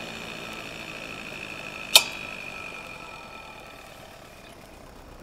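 A 1 hp Century farm-duty electric motor spinning a two-blade mower cutter, with a steady high whine. A single sharp click about two seconds in is the loudest thing. After it the whine slowly fades and falls in pitch as the motor winds down.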